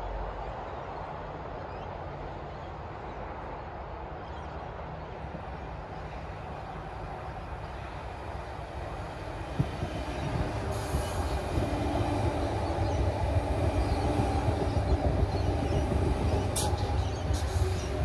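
Sydney Trains electric suburban train running in beside the platform: a low rumble swells about ten seconds in as the train rolls past, with a whine held over it.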